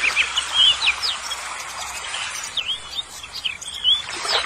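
Small birds chirping with many quick, short rising and falling calls, over the soft swish of water being stirred in a plastic tub.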